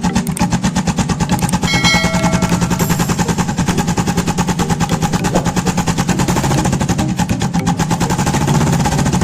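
Royal Enfield Bullet 350's single-cylinder engine running through a modified aftermarket silencer, giving a fast, even train of loud exhaust beats that goes on without a break.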